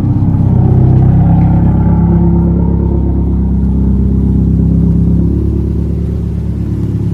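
Subaru WRX STI's turbocharged flat-four engine idling steadily, its note lifting slightly about a second in and getting a little quieter near the end.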